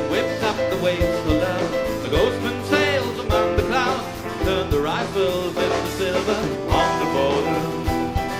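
Live band playing an instrumental passage of a rock song: a wavering lead melody over held chords, with regular bass drum beats.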